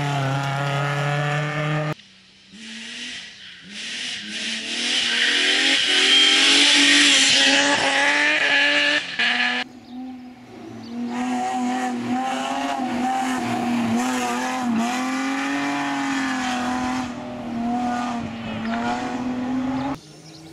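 Hill-climb race car engines running hard, in several short cut-together clips. A BMW E36 coupe slides through a wet corner. Next comes a loud hissing stretch with tyre squeal over the engine. Then another car's engine holds a steady high note with small rises and falls.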